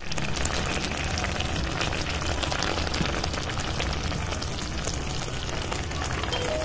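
Tuna steaks and onion rings sizzling in a soy sauce in a pan: a steady crackle full of small pops.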